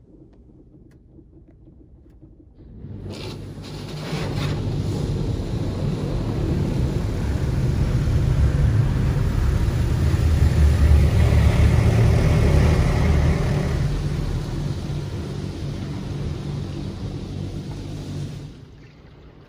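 Water spray from an Oasis Eclipse touch-free car wash hitting the car's body and glass, heard from inside the cabin as a loud rushing rumble. It starts about three seconds in, swells to its loudest midway, and cuts off suddenly about a second before the end.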